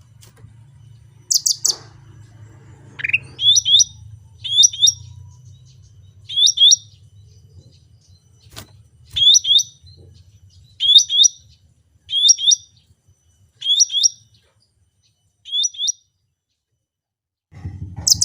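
Cucak rante songbird calling: a sharp high chirp, a quick rising note, then the same short high double note repeated about nine times at one- to two-second intervals. A faint low hum lies under the first half.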